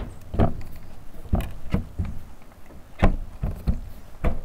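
A wood-framed plexiglass window insert being handled and pushed into a wooden window opening: a series of irregular knocks and bumps, about seven in all, the loudest about three seconds in.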